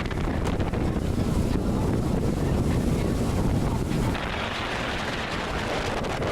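Wind buffeting the microphone aboard a moving boat. About four seconds in, the low rumble eases and a higher hissing rush takes over.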